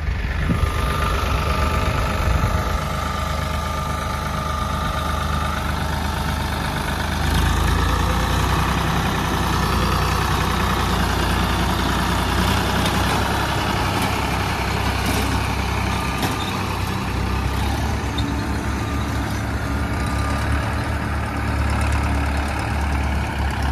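Farmtrac 60 tractor's diesel engine running steadily under load while pulling a PTO-driven rotary seeder that tills and sows the field. The engine note grows louder about seven seconds in.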